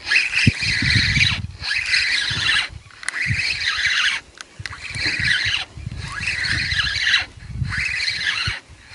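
Spinning reel, a Nautilus 3000 feeder, being cranked to bring in a hooked fish against a bent rod. It turns in runs of about a second and a half with short breaks between, a whirring rasp with handling rumble under each turn.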